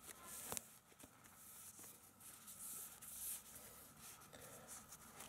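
Faint rustling and rubbing of a knit child's sock being worked over a smartphone, with a few light handling clicks.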